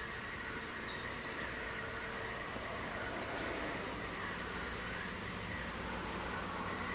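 Outdoor background noise with a bird's quick, high, downward chirps repeating through the first second, then a steady low rumble.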